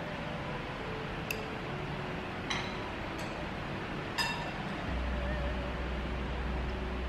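Metal chopsticks clinking against a ceramic bowl four times, each tap ringing briefly, over a steady hiss. A low hum comes in about five seconds in.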